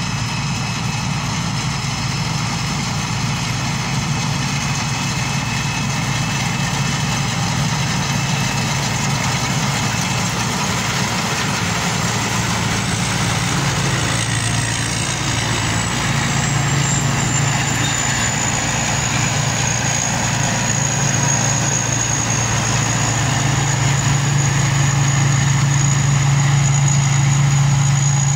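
Tracked rice combine harvester at work, cutting and threshing rice: its engine drones steadily under the clatter of the machinery. A thin high whine joins in about halfway through and holds steady.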